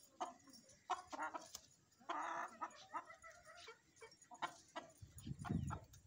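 Chicken clucking: a series of short clucks, with a longer call about two seconds in. A low rumble comes in near the end.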